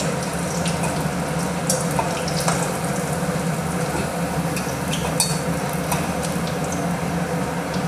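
Small whole potatoes deep-frying in hot oil in a steel kadai, a steady sizzle, with a few light clinks of a wire skimmer against the pan as they are lifted out. A steady low hum runs underneath.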